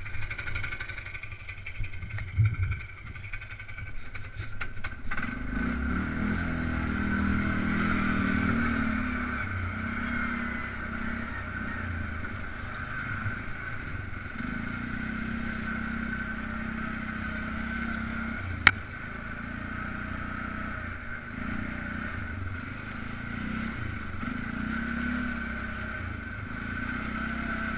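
Polaris Sportsman 500 ATV's single-cylinder engine running low for the first few seconds, then pulling steadily as the quad rides along the trail from about five seconds in. One sharp click sounds about two-thirds of the way through.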